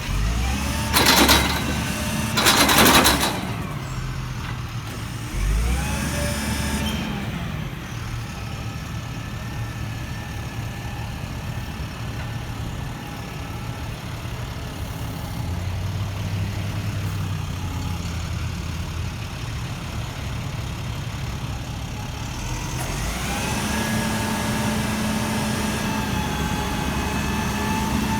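Truck engine running steadily, its pitch rising about six seconds in and again near the end. Two loud noisy bursts come in the first three seconds.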